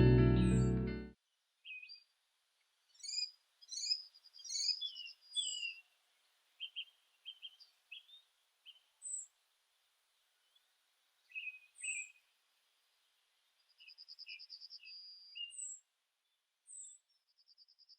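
Songbirds calling outdoors: scattered short chirps and whistled notes, with a few rapid buzzy trills. Background music ends sharply about a second in.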